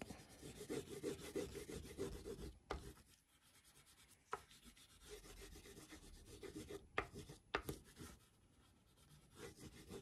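White crayon rubbed quickly back and forth on drawing paper, faint and scratchy, in runs of strokes with a lull about three seconds in and a few sharp ticks.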